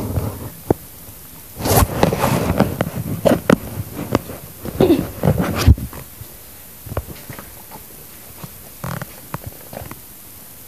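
Handling noise from a handheld camera: a busy run of knocks, clicks and rustling in the first half, then a few scattered clicks and rubbing as the camera is pressed against fabric.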